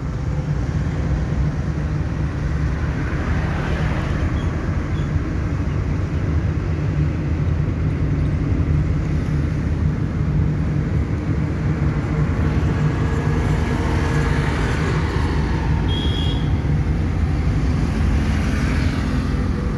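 Car engine running steadily with tyre and road noise, heard from inside the cabin of a small car cruising in third gear.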